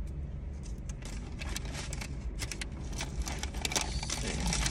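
Foil burrito wrapper crinkling and a small plastic salsa cup being handled: many light crackles and clicks over a steady low hum.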